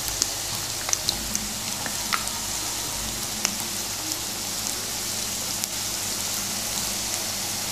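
Chicken samosas deep-frying in hot oil, just lowered in raw: a steady high sizzle with scattered sharp crackles and pops, most frequent in the first few seconds.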